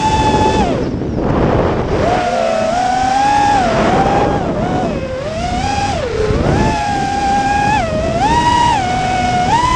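FPV quadcopter's brushless motors whining, the pitch stepping up and down again and again as the throttle is worked, cutting out briefly about a second in. Wind rushes over the onboard camera's microphone.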